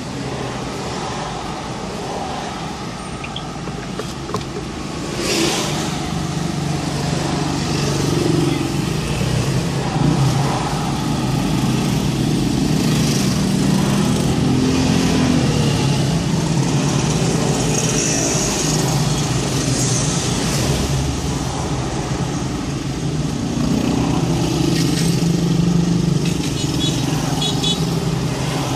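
Traffic noise in a slow jam: a steady low engine hum, with motorcycles passing close by, their engines rising and falling in pitch several times.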